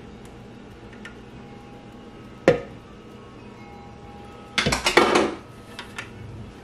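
Kitchen clatter as a food processor's plastic bowl and blade assembly are handled over a stoneware mixing bowl while batter is poured out. There is one sharp knock about two and a half seconds in, then a louder burst of clattering about two seconds later, followed by a smaller knock.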